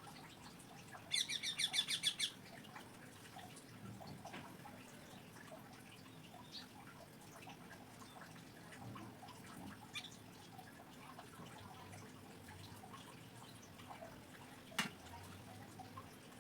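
A small bird chirping: a rapid run of about ten high chirps lasting about a second, then faint scattered ticks and one sharp click near the end.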